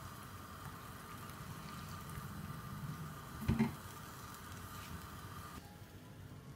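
Sweet potato and jaggery kheer simmering and bubbling in a metal pan as coconut milk is added and stirred in with a spatula. A sharp knock against the pan about three and a half seconds in.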